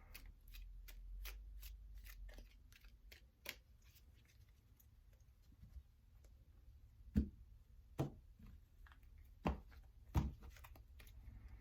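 A small deck of handmade oracle cards being shuffled by hand: a quick patter of soft card clicks, then several louder, separate snaps as cards are pulled off the deck and laid down.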